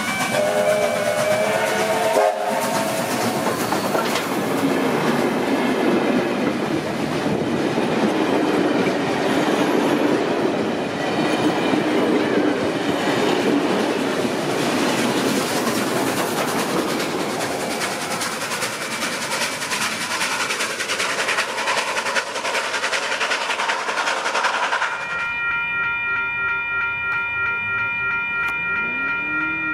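Steam-hauled passenger train passing close by, its locomotive and a long rake of carriages rolling past as a steady, loud rolling noise for about twenty seconds. About 25 seconds in, the sound cuts abruptly to a steady chord of high held tones.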